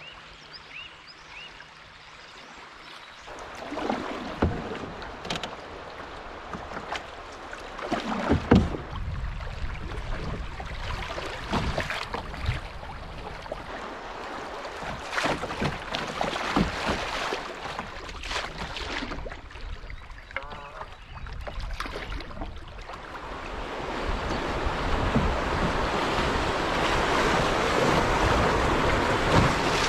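Canoe being paddled on a river: irregular paddle strokes with splashes and sharp knocks, every second or two. From about twenty-three seconds in, a steady, louder rush of broken water takes over as the canoe runs into a riffle of white water.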